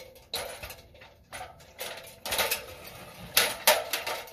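Sharp metallic clicks and clacks, about half a dozen at uneven intervals, of Xtenda-Leg ladder leg levelers on an aluminium extension ladder being pushed down by foot and latching.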